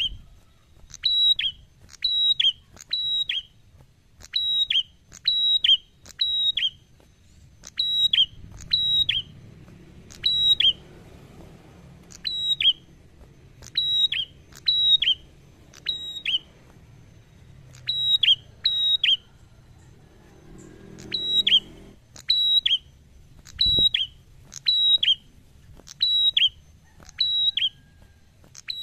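Caged tailorbird calling: loud, sharp, whistled notes repeated about once or twice a second, each slurring down a little in pitch, often in quick pairs or threes.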